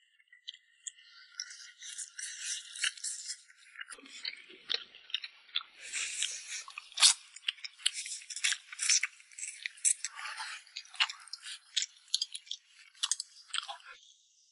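Close-up eating sounds: chewing and crunching, with many sharp clicks.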